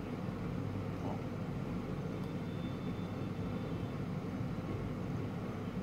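Steady low hum of running machinery, with a faint thin whine for a second or so near the middle.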